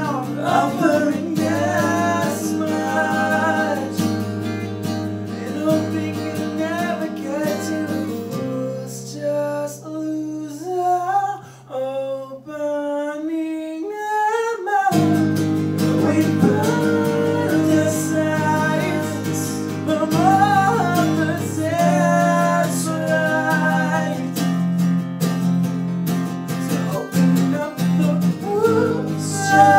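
Male voice singing over two acoustic guitars. About eight seconds in the guitars thin out to a few held notes under the voice, then they come back in full about fifteen seconds in.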